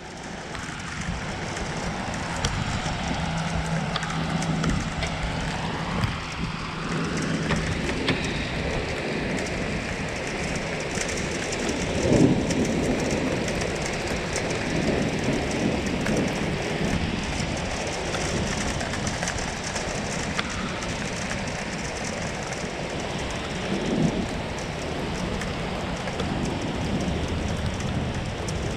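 Steady rain with rolls of thunder, the loudest about twelve seconds in and another about twenty-four seconds in.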